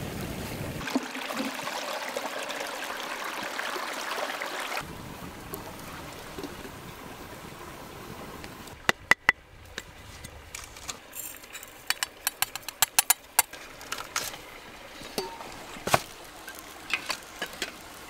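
Metal camp coffee percolator parts clinking together as they are handled and fitted, a rapid run of light sharp clicks about halfway through with a few more near the end, over the steady rush of a stream that is louder for the first few seconds.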